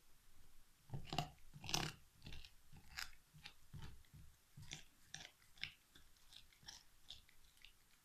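Alaskan Malamute gnawing a big turkey bone, with irregular crunches and cracks as its teeth bite into the bone. The loudest crunches come a second or two in, followed by smaller ones.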